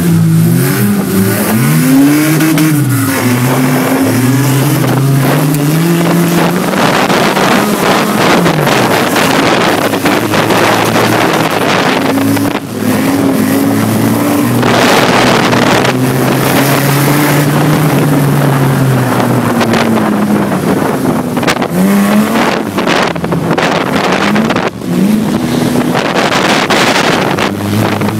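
A race car's engine heard from inside the cabin, revving up and down as the car laps a wet oval, under a steady hiss of tyre spray and wind. The level dips briefly twice, about twelve and twenty-five seconds in.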